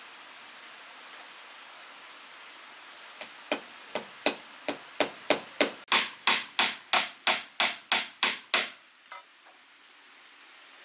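A run of about seventeen sharp blows on wood, roughly three a second, starting about three seconds in, growing louder and then stopping.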